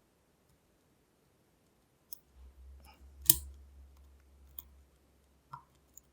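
Lock pick tapping the pins inside a Lockwood V7 padlock: a few sharp, scattered metallic clicks after a quiet first two seconds, the loudest about three seconds in.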